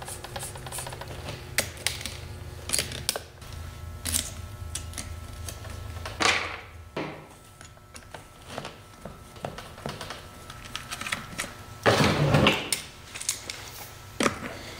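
Scattered clicks, taps and rattles of hands and small hand tools working on an RC monster truck's suspension and wheels: shock springs being compressed, a hex driver at the shock mounts and a wrench on the wheel nuts. There are louder handling noises about six and twelve seconds in.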